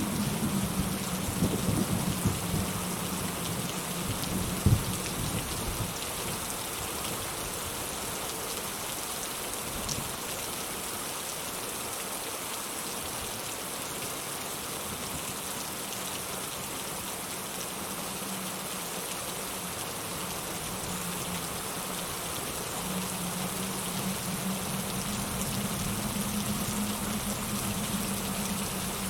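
Steady rain pattering on a surface, with a low thunder rumble fading away over the first few seconds. A single sharp knock comes about five seconds in.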